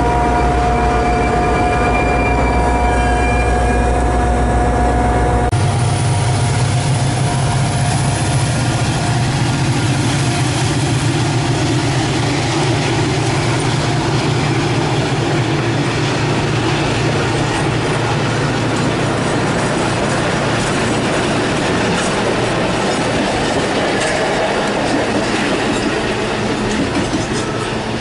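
Metra commuter train departing past the platform: for about the first five seconds the diesel locomotive pushing it gives a steady engine hum, then the bilevel coaches roll by with a steady rumble and wheel noise as the train pulls away.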